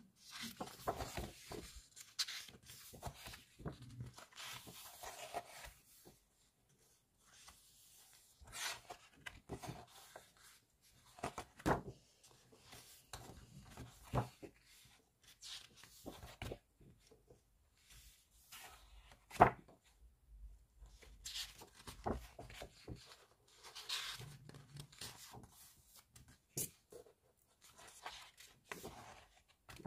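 Glossy pages of a large photobook being turned by hand: irregular paper rustling and sliding with short pauses, and a few sharper clicks of paper or fingers against the book, the loudest about two-thirds of the way through.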